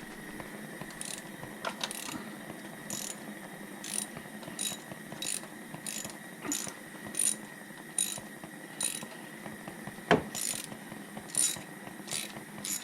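Ratchet wrench with a spark-plug socket clicking in short back-and-forth strokes, roughly one every two-thirds of a second, as a stiff spark plug is unscrewed from a 2007 Toyota Camry engine. There is one sharp knock about ten seconds in. The plug comes out harder than it should, held by something put on its threads.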